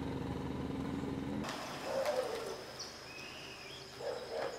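Outdoor ambience: a steady low hum for the first second and a half, then, after an abrupt change, quieter air with a few bird calls, a low falling call about two seconds in and a short rising chirp a second later.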